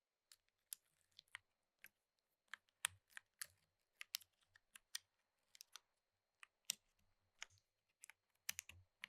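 Typing on a HIBI HERO 60% tray-mount mechanical keyboard with stock Epsilon switches, GMK keycaps, an FR4 plate and plate foam: quick, irregular keystrokes, a few of them deeper and louder, about three seconds in and again near the end.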